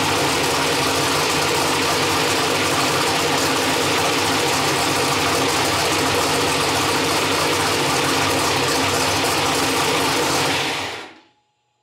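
Turbocharged LS V8 race engine with open exhaust outlets running steadily on its first start. It cuts off abruptly near the end.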